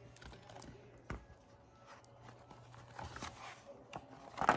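Pages of a hardcover picture book being turned and handled: soft paper rustles and light taps, with a louder rustle near the end.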